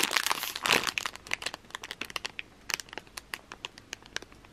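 Clear plastic bag crinkling as a squishy toy is handled and squeezed through it. There is a dense run of crackling in the first second or so, which then thins to scattered crackles.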